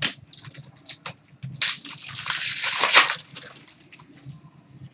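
Trading cards and their plastic wrapping being handled, a few small clicks and then a crinkling crackle for about a second and a half midway through.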